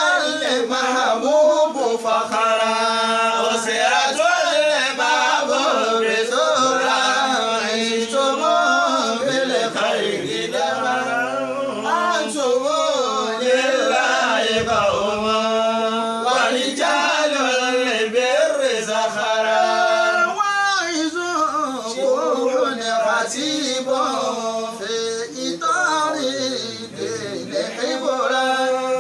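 A man chanting unaccompanied in a drawn-out, melodic style, his long held notes wavering up and down.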